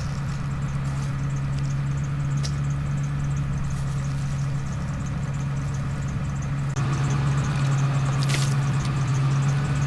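A motor running steadily with a low, even hum, growing louder and rougher about seven seconds in.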